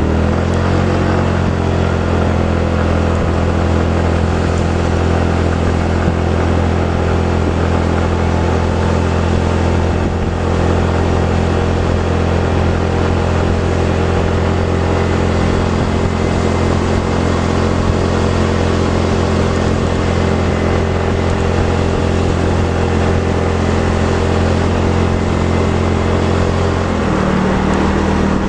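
Vehicle engine running steadily under load while climbing a mountain road, with road noise; the engine note shifts in pitch shortly after the start and again near the end.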